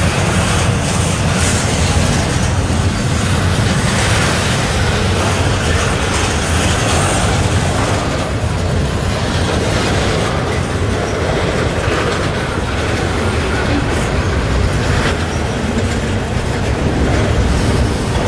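Double-stack intermodal freight train's well cars rolling past close by, steel wheels on rail making a loud, steady noise with a few faint knocks along the way.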